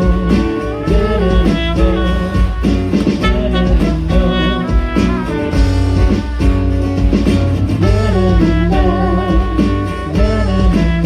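Band playing an instrumental passage of a pop song: a melodic lead line over bass and a steady drum beat, with no vocals.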